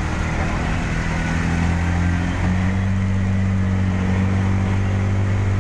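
A vehicle's engine running steadily with a low hum over road or wind noise; its note steps up slightly a little before halfway.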